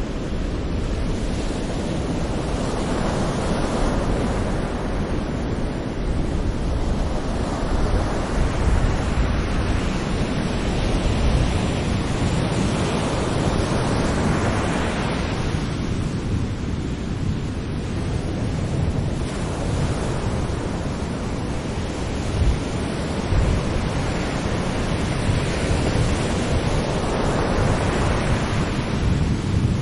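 Sea waves breaking and washing onto a beach in repeated surges that swell and ebb every several seconds, over a constant low rumble of surf.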